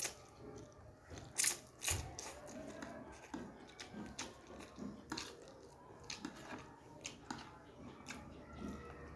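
Close-up eating of instant fried noodles (mie goreng): slurping and chewing, with many sharp clicks scattered through it, the loudest about a second and a half and two seconds in.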